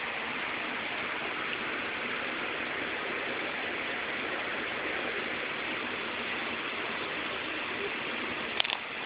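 A steady, even hiss with no distinct sound in it, and two sharp clicks near the end.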